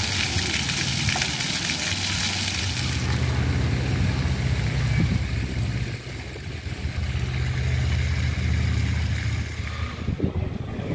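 A steady splashing hiss of water for about the first three seconds, giving way to a low, steady engine hum that runs until near the end.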